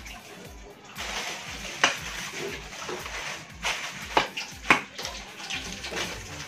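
Plastic packaging crinkling and rustling as parts are rummaged out of a cardboard box, with three sharp clicks of handled parts.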